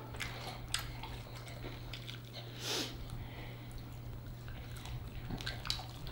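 Close-miked mouth sounds of people chewing and sucking sauced chicken wings off the bone: soft wet smacks and clicks, with a short breath a little under three seconds in. A steady low hum sits underneath.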